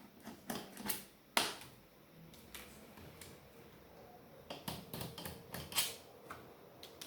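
Irregular small clicks and taps of a screwdriver and screws against a laptop's plastic bottom cover as the screws are taken out, with a quicker run of clicks in the second half.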